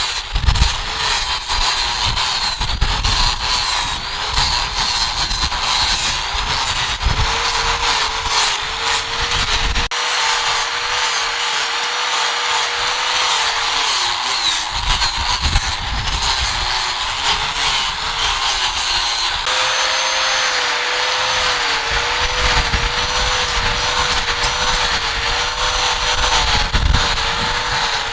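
A power tool running steadily and rubbing against a workpiece, with a wavering motor tone. The sound changes abruptly twice.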